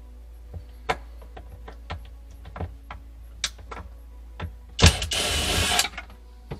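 Cordless driver running for about a second, backing out a Phillips screw from a refrigerator's evaporator cover, after a few light clicks as the bit is set in the screw.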